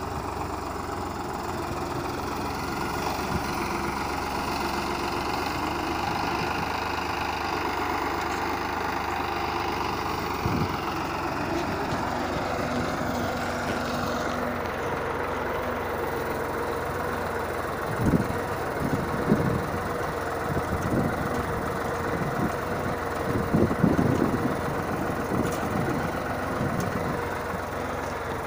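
Tractor's diesel engine running steadily while it pulls a multi-row seed drill through loose tilled soil. In the second half there are a few louder low bumps.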